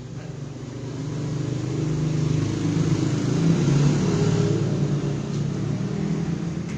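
A motor vehicle's engine passing by, growing louder to a peak a little past the middle and then fading.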